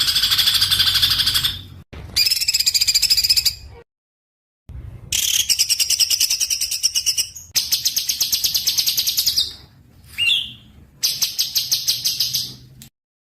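Small songbird singing a series of rapid, high trills, each lasting one to two seconds, with a short single note in between. The phrases cut off abruptly, with a dead-silent gap or two between them, as in an edited song-training recording.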